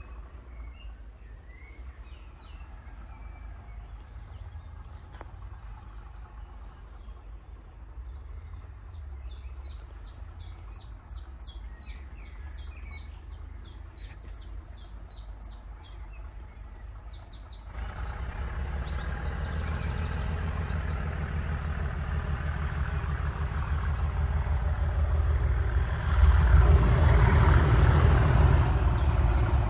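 Birds singing, with a fast run of repeated high chirps about halfway through. Then the engine of an approaching diesel locomotive comes in, growing steadily louder toward the end.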